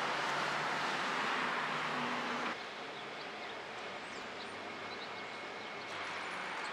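City street ambience: a steady wash of traffic noise with a low hum. About two and a half seconds in it drops at a cut to quieter distant traffic, with faint high chirps over it.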